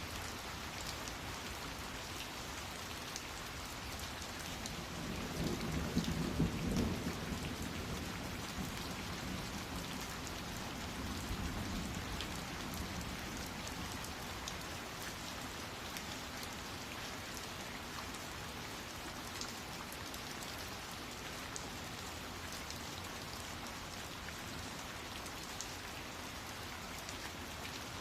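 Steady rain falling, with a low rumble of thunder swelling about five to seven seconds in and a fainter one a few seconds later.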